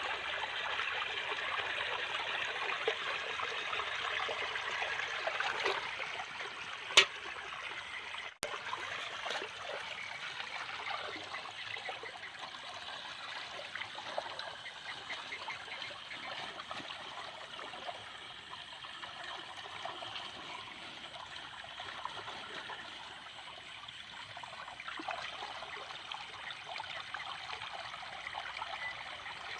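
Water trickling and running steadily through flooded ground, louder for the first six seconds, with one sharp click about seven seconds in.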